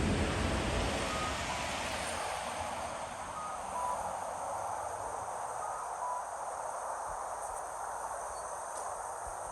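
Passing vehicle noise that fades over the first few seconds into a steady background hiss, with faint electronic beeps: a higher note followed by a lower one, repeated three times about two seconds apart.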